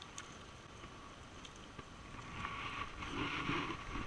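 Sea water surging and washing through a rocky channel. It swells louder about halfway through.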